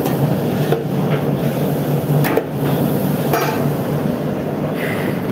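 A metal spoon knocking and scraping against a steel cooking pot several times at irregular intervals, over a steady low hum of kitchen equipment.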